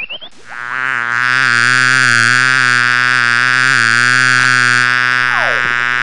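Cartoon bee buzzing sound effect: a steady, low, buzzy drone lasting about five seconds, with a brief swooping whistle near the end.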